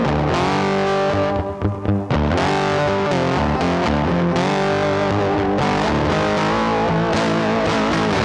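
Instrumental music led by electric guitar, with a brief break about one and a half seconds in.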